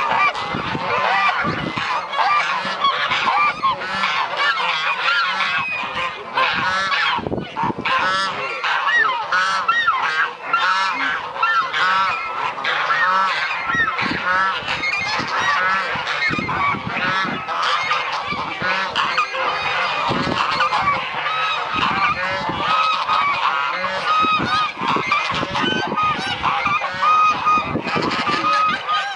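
A flock of geese honking continuously, many calls overlapping with no break.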